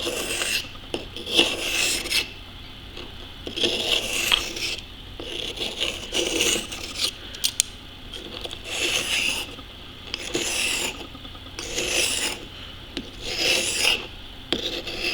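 Knife blade being drawn across the fine side of a two-sided sharpening stone in repeated scraping strokes, about one stroke every one to two seconds.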